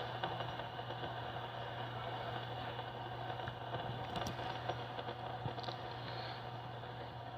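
Steel fidget spinner spinning freely on its bearing, a steady whir that slowly fades as it winds down.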